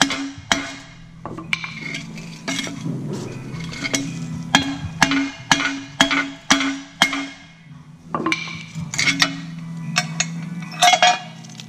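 Hammer blows on the steel suspension arm and bushing bolt of a Renault 4, about two strikes a second, each with a short metallic ring, working the seized bushing loose. The strikes pause briefly about eight seconds in, then come quicker near the end.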